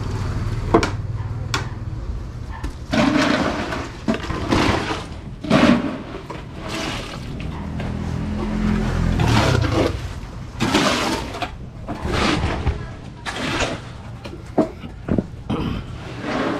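Wet concrete being mixed and poured: a series of irregular wet, sloshing swishes, over a low steady hum that fades out about two-thirds of the way through.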